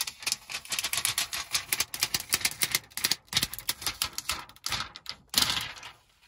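Clear protective plastic film being peeled off a car's dashboard touchscreen, crackling in quick clicks as the adhesive lets go, with a louder rustle of the film about five seconds in.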